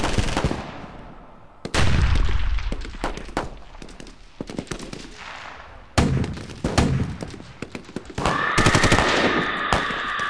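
Battle sound effect of automatic gunfire in bursts with single shots, over a deep rumble of blasts. A loud blast about two seconds in starts the heavier stretch. Near the end a steady high-pitched whine sets in under rapid continuous firing.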